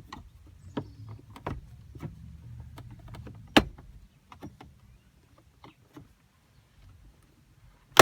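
Plastic dash trim panel around the radio of a 2002 Honda Civic being pried up with a screwdriver: scattered creaks and clicks, a sharp crack about three and a half seconds in, and a loud snap at the end as its clips pop loose.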